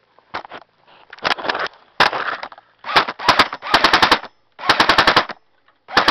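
Airsoft gun firing on full auto in a series of short rapid bursts, about a dozen shots a second, with brief pauses between the bursts.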